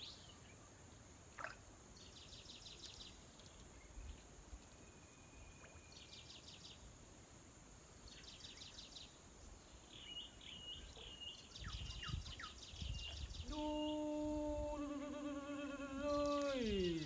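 Quiet riverside ambience with small birds giving short, rapid trills every few seconds. Near the end a person's voice holds a long low hummed note for about three seconds, then slides down in pitch.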